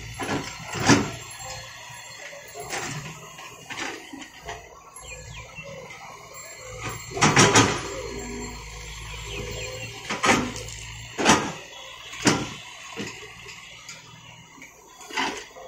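Caterpillar tracked excavator digging: the diesel engine runs low underneath while the bucket and boom linkage give sharp metal clanks and knocks every second or two, with a loud cluster of them a little past the middle.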